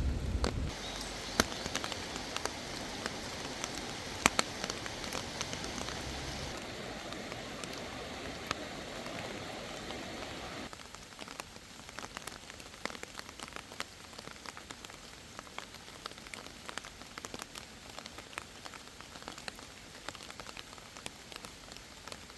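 Monsoon rain falling, with many individual drops tapping close by over a steady hiss of rain. The sound drops abruptly quieter about ten seconds in.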